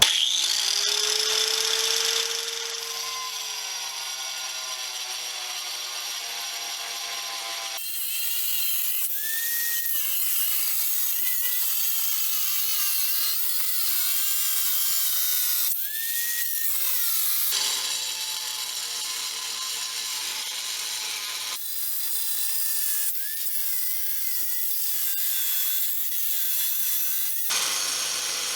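Cheap angle grinder with a diamond blade spinning up, then cutting lengthwise through a hard porcelain plank. The motor's whine sits under a dense, steady grinding noise that changes abruptly several times.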